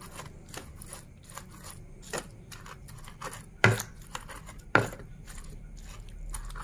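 Pestle grinding chilies, shallots and garlic in a stone cobek (Indonesian mortar) for sambal: a run of soft scraping and crushing clicks, with three sharper knocks of pestle on stone, the loudest two around the middle.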